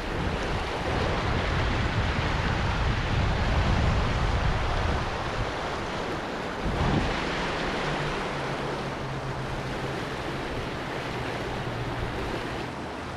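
Mountain river rushing steadily, with wind buffeting the microphone as a heavy low rumble for the first few seconds. There is a single knock about seven seconds in.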